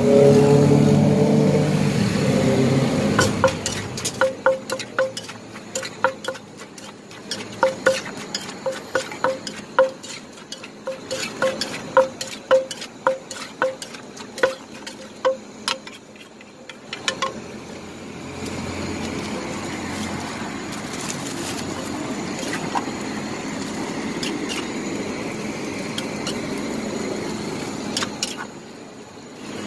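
A wooden pestle pounding green papaya salad (som tam) in a large clay mortar: a quick run of sharp, ringing knocks, with a spoon clinking against the mortar as the salad is turned. A louder low rumble comes before the pounding starts. After about seventeen seconds the knocking stops, giving way to a steady scraping noise as the salad is stirred and scooped out.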